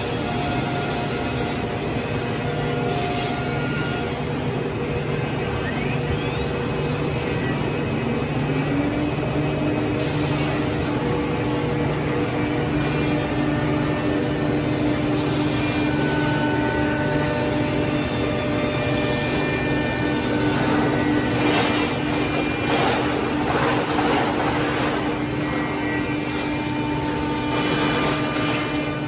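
Woodmaster CNC router spindle cutting grooves in an edge-glued wooden panel, with dust extraction running: a steady machine whine. One tone rises about eight seconds in and then holds. The cutting noise grows louder between about 21 and 25 seconds in.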